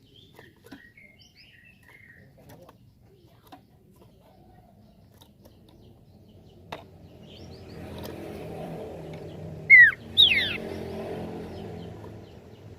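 Common iora (cipoh) calling: faint scattered chirps, then about ten seconds in two loud whistled notes sliding downward in quick succession. A low steady hum comes in underneath from about eight seconds in.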